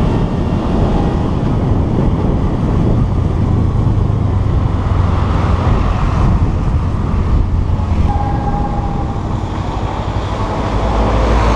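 Wind rushing over an onboard camera's microphone on a moving motorcycle, with the motorcycle's engine running underneath, on a wet road.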